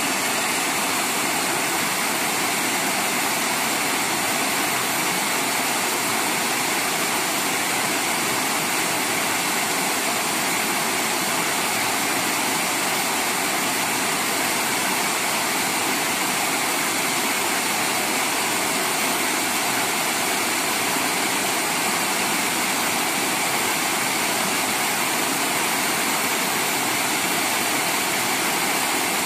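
Small weir waterfall pouring into a pool: a steady, unbroken rush of falling water.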